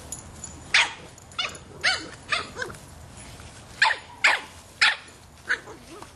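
A 3½-month-old Boston Terrier puppy barking at a soccer ball: about ten short, sharp, high-pitched barks in irregular bursts.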